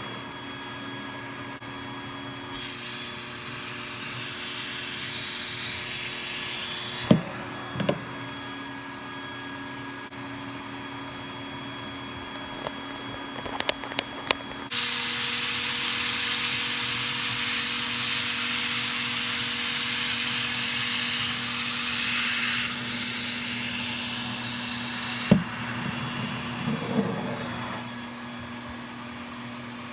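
Vacuum cleaner running, its suction hiss rising and falling as the nozzle works along a curtain rail, with a few sharp knocks. About halfway through the motor note changes and it gets louder.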